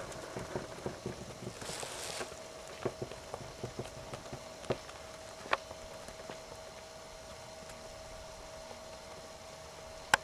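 A pony's hooves striking the arena ground at a trot: irregular knocks that thin out after about six seconds, over a faint steady hum. A single sharp click comes near the end.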